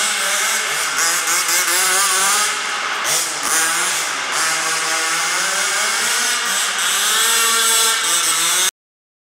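Zenoah 29cc two-stroke engine with a Samba tuned pipe in an MCD W5 RC car, revving up and down repeatedly as the car is driven. The sound cuts off suddenly near the end.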